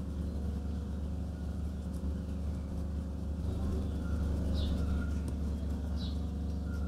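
Steady low rumbling hum with two short, falling high-pitched chirps, one about two-thirds in and one near the end.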